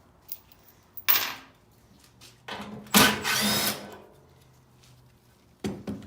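A power drill or driver run in three short bursts: a brief one about a second in, a longer one of about a second and a half in the middle with a whine that changes pitch, and another brief one near the end.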